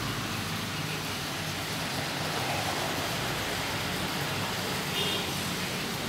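Steady background noise: an even hiss over a low rumble, with a brief faint high-pitched tone about five seconds in.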